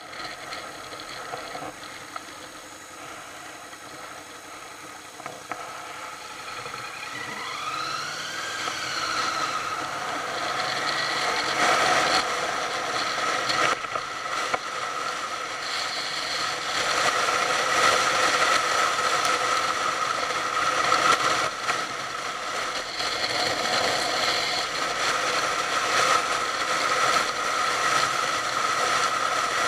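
Motorcycle engine heard from an onboard camera: running quietly at first, then its note rises as it pulls away about eight seconds in, and it gets louder and runs steadily with wind and road noise while riding.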